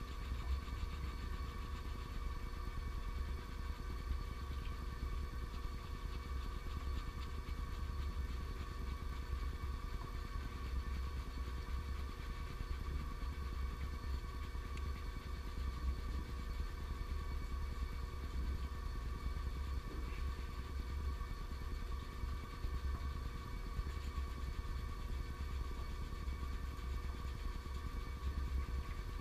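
A steady low mechanical hum and rumble with a few constant tones, unchanging throughout.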